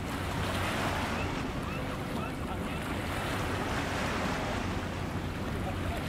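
Small waves lapping and washing against shoreline rocks, with wind buffeting the microphone.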